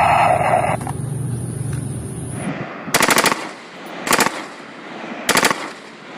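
A toy gun's electronic firing sound effect stops about a second in. Then come three short bursts of automatic fire from an M4-style carbine, each a rapid string of shots.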